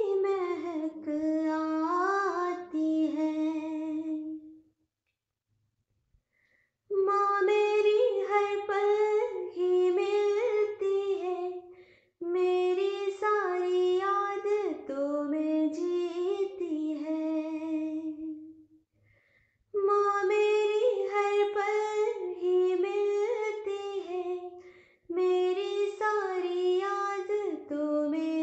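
A young female voice singing a slow, wordless melody in long phrases with short pauses, a two-second break about five seconds in, with little or no accompaniment.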